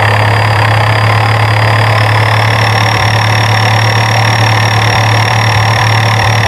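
Truck engine running steadily at an even speed, with a deep hum and a high whine that rises slightly in pitch.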